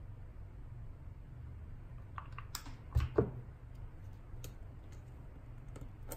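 Quiet clicks and taps of small craft pieces and a hot glue gun being handled on a tabletop, with a louder knock and a short squeak about three seconds in, over a steady low hum.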